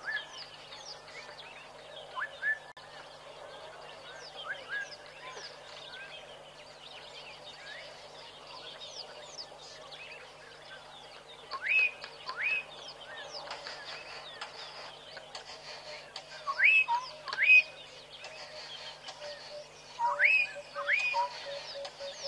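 Many wild birds calling together, a mix of quick chirps and whistles, with a louder rising whistle given in pairs about a second apart, three times in the second half.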